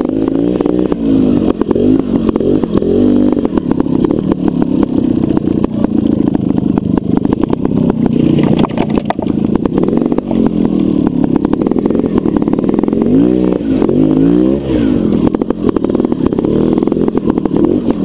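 Trials motorcycle engine running at low revs and being blipped up and down repeatedly as the bike picks its way over rocks, with knocks and rattles from the bike throughout.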